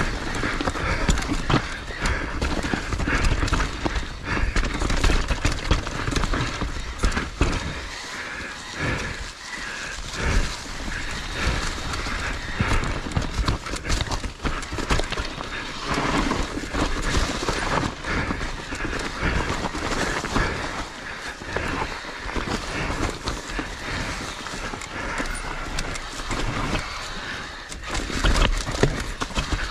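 Edges scraping and carving on packed snow in a run of turns down a ski slope, with wind rushing over the microphone as a steady low rumble.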